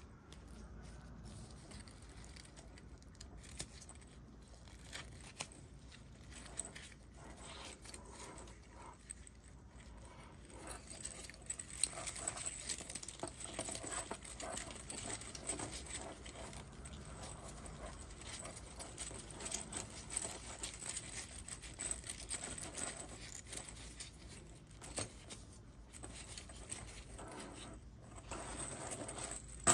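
A 3D-printed PLA+ articulated dragon being flexed and handled in gloved hands: its plastic segments click and rattle against each other. The clicking gets denser and louder about ten seconds in.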